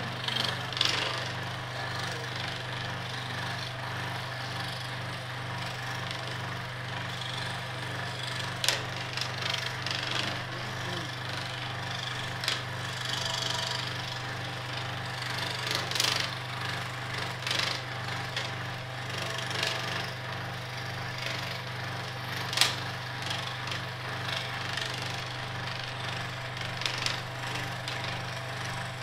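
Electric scroll saw cutting a piece of olive wood, its motor humming steadily while the blade rasps through the wood. A few sharp clicks and snaps stand out from the cutting, the loudest about two-thirds through.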